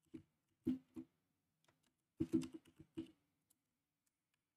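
Computer keyboard keystrokes: a few separate taps in the first second, then a quick run of keys about two seconds in that stops after about three seconds.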